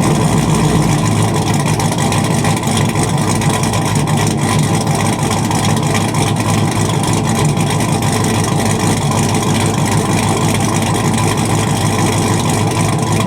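Cammed 5.3-litre V8 of a Chevy Tahoe running steadily at idle through a muffler-deleted 3.5-inch straight pipe, a loud, choppy exhaust note from its stage 2 truck cam.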